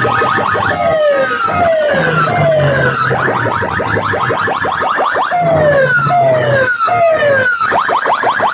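Electronic siren-effect track played very loud through stacks of horn loudspeakers on a competition sound rig. Falling siren swoops repeat about once a second over a fast stream of rising chirps, with a low bass note that comes and goes.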